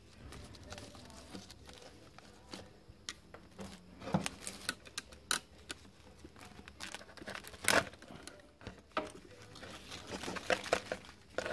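Foil pouch and layered electrode sheets of a lithium battery cell crinkling and tearing as they are pulled apart and handled with pliers, with irregular sharp clicks.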